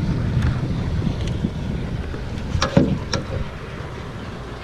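Wind buffeting the microphone as a low, uneven rumble that eases off, with a few sharp clicks a little under three seconds in from the fly rod and fly line being handled.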